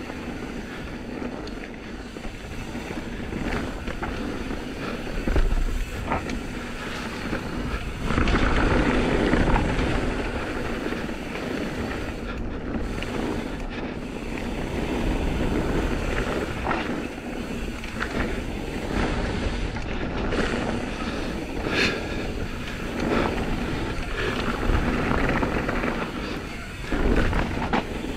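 Wind rushing over a GoPro microphone and tyres rolling on a dirt trail as an Intense M16 downhill mountain bike descends, with scattered knocks and rattles from the bike over bumps.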